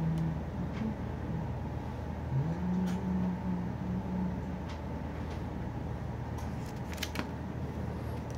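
Small plastic figure pieces clicking and rattling as they are handled and fitted together, with a quick cluster of sharp clicks about seven seconds in, over a steady low room hum. A low held tone steps up and down in pitch a few times in the first half.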